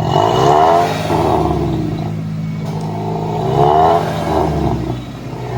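Toyota Corolla XLI's 2NZ four-cylinder petrol engine being revved from idle, rising and falling twice. It runs smoothly with no misfire, its blown head gasket just replaced.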